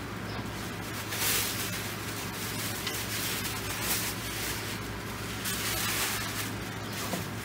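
Plastic wrapping rustling and crinkling as it is pulled off a rolled-up inflatable paddle board, swelling in several bursts of handling.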